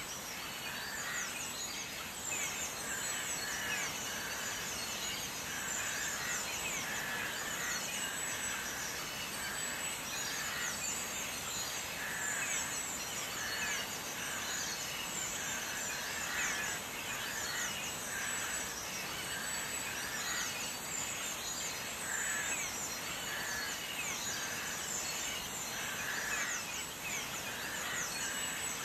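Diced onions sizzling in hot oil in a stainless steel pot, a steady crackling sizzle.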